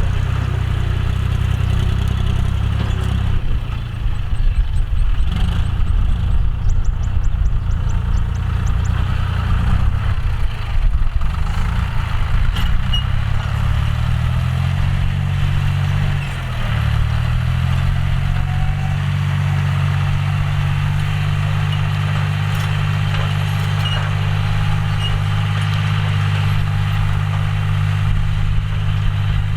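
John Deere 5045D tractor's three-cylinder diesel engine running steadily while ploughing. Its pitch shifts about four seconds in, sags briefly around the middle, then holds steady to the end.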